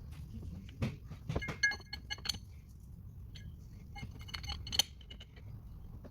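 Steel gearbox parts clinking and tapping against each other as gears and bearings are handled and fitted onto a shaft, in two bunches of sharp, ringing clinks, the loudest one near the end.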